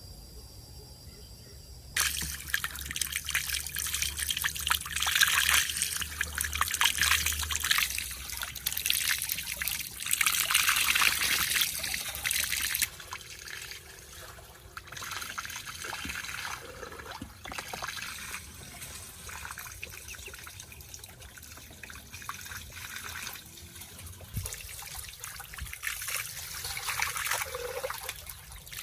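Running, splashing water that starts suddenly about two seconds in, louder for the first ten seconds or so and then softer.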